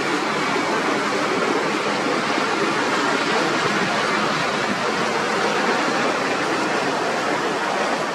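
Loud, steady rushing noise with no engine note or voice in it, dropping slightly right at the end.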